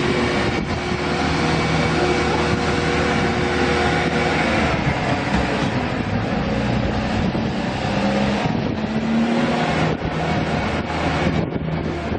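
Steady engine noise with a few held tones and a slight rise in pitch about eight seconds in, mixed with wind on the microphone.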